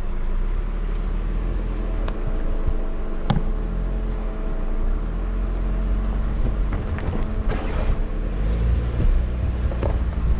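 Car driving slowly over a rocky dirt road: a steady low rumble of engine and tyres with a faint hum, broken by a few sharp clicks, more of them near the end.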